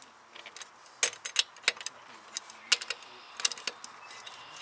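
Sharp metallic clicks and clinks, scattered and in quick little clusters, from a long-handled ratchet and socket working the lug nuts on an alloy wheel as they are snugged down.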